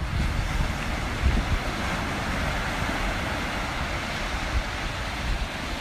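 Surf breaking and washing up a sandy Gulf of Mexico beach, a steady hiss of waves, with wind buffeting the microphone in low gusty rumbles.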